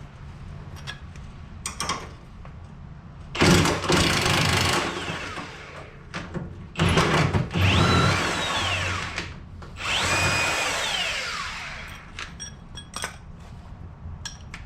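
Impact wrench run three times, each burst lasting one to two seconds with the motor whine rising and falling, as it loosens the 14 mm suspension bolts. Light clicks and knocks of tools and metal parts come in between.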